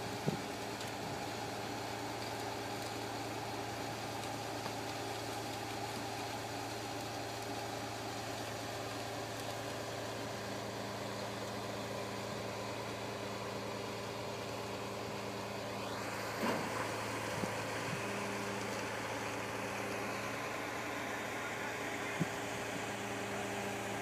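Diesel engine of a concrete boom pump truck running steadily during a pour. About two-thirds of the way through, a whine rises sharply in pitch, and a few short knocks follow.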